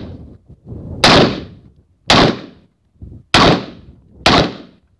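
Four rifle shots about a second apart, each sharp crack trailing off in a short echo.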